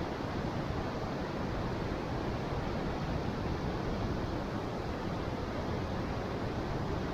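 Steady rushing roar of falling water at Niagara Falls.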